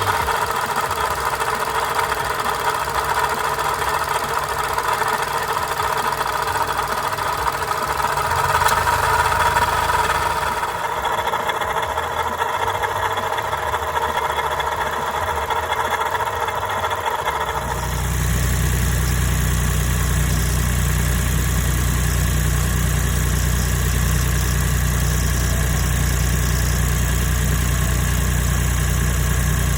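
Daihatsu Copen's KF three-cylinder engine idling with a loud, steady whining noise from its failed water pump. About 18 seconds in, it changes to the same engine idling normally after the water pump repair: a low steady hum without the whine.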